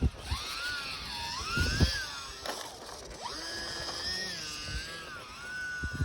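Electric motor and propeller of an E-flite UMX Turbo Timber RC plane whining, the pitch falling and rising as the throttle changes. Gusts of wind buffet the microphone with low thumps, loudest at the start and about two seconds in.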